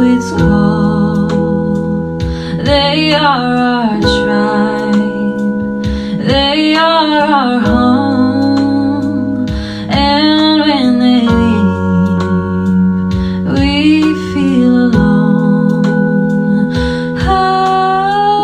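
A slow song: a sung melody in phrases over held chords that change every few seconds.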